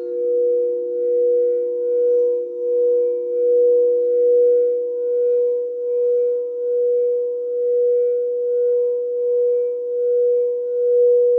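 Crystal singing bowls sounding together in a sustained, steady ring of two main tones. The loudness swells and fades a little more than once a second, the slow beating of the bowls' tones against each other.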